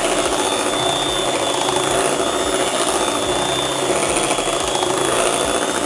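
Handheld electric mixer running steadily, its beaters whisking thick blended-bean batter in a glass bowl to beat air into it. A steady high whine sits over the motor noise.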